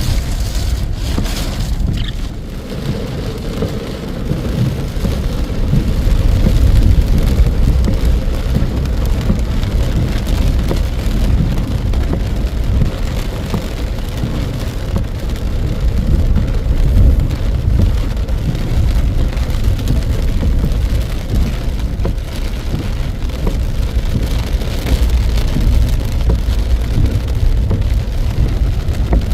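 Heavy rain pouring down in strong wind: a steady, loud rush with a deep rumble underneath.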